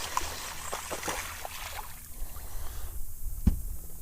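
Water sloshing and lapping against a fishing boat, with small clicks and splashes that die down about halfway through, and one sharp knock about three and a half seconds in.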